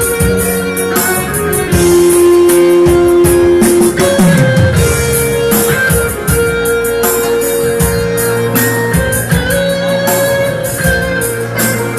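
Korg Pa1X arranger keyboard playing an improvised piece: long held lead notes in a guitar-like voice over a bass line and a steady drum accompaniment, with the bass sliding down in pitch about four seconds in.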